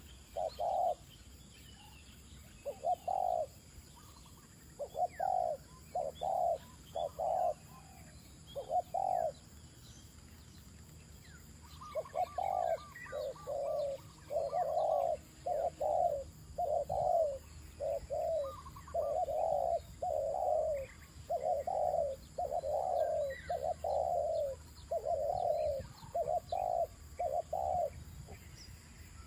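Spotted doves cooing: short repeated coos, spaced out at first, then running almost without a break from about halfway through, with a brief rapid trill as that run begins. Faint chirps of small birds sound higher up.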